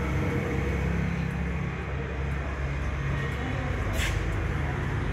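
Steady low mechanical hum, like an idling engine, with a short hiss about four seconds in.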